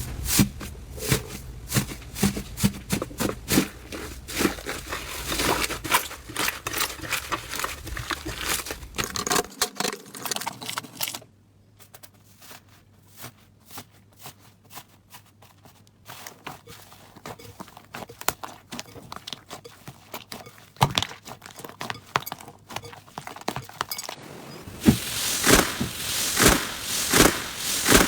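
Slime being squeezed, stretched and poked by hand: a dense run of small pops, clicks and crackles. It goes quieter for a few seconds about midway and gets busier and louder again near the end.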